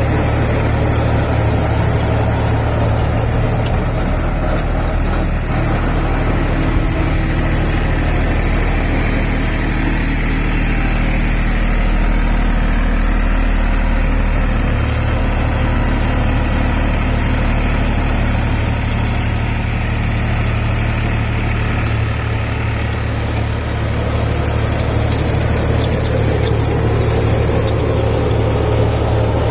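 Massey Ferguson 254 Dynasmart tractor's diesel engine running steadily, its low note shifting slightly around the middle.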